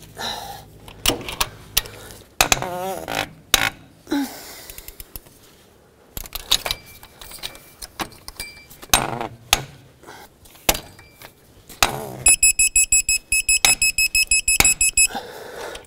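Digital torque-angle wrench ratcheting on cylinder head bolts, with sharp clicks and knocks of the tool. About twelve seconds in it beeps rapidly for about three seconds, the wrench's signal that the bolt has reached its target angle.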